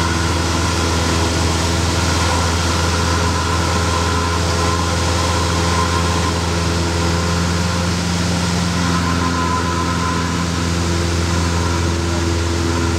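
Single-engine piston light aircraft's engine and propeller, heard inside the cabin in cruise flight: a loud, steady drone that does not change.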